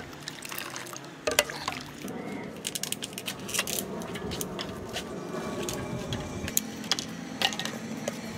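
Liquid sloshing and splashing as it is handled, with many light clicks and knocks of small plastic jelly cups.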